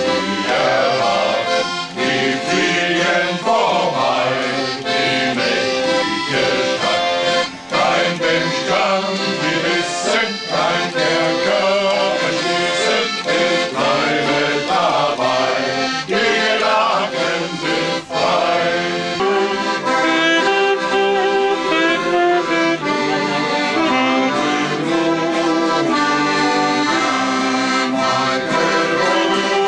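Piano accordion playing a traditional tune, with a group of men singing along from song booklets for roughly the first two-thirds; from about two-thirds of the way in the accordion carries on mostly alone with steady held chords.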